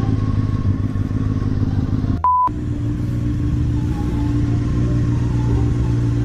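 Sport motorcycle engine running steadily at low revs. About two seconds in, the sound cuts out briefly under a single steady censor beep.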